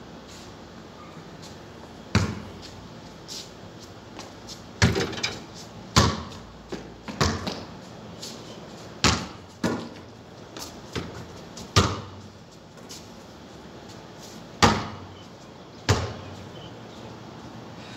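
A basketball bouncing on the concrete court: about ten sharp thumps at irregular intervals, each with a short ringing tail.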